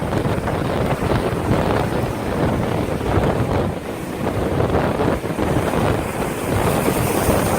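Strong storm wind buffeting the microphone in a loud, steady rumble, with ocean surf breaking underneath.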